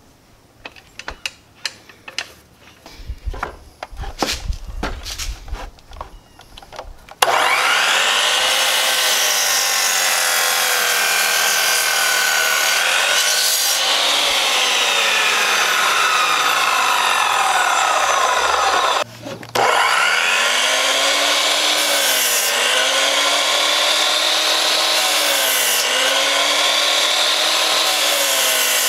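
A run of knocks and taps, then an Admiral 12-inch sliding compound miter saw starts and cuts through lumber, running loudly with its pitch dipping and recovering as the blade bites. There is a brief break about 19 seconds in.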